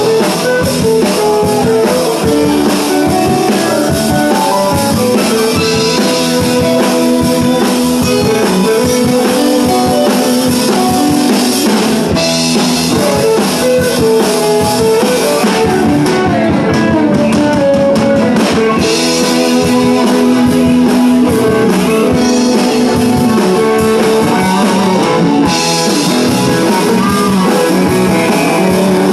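Live blues-rock band playing an instrumental passage: electric guitars, bass guitar and drum kit, with harmonica played into the vocal microphone and held notes running over the band.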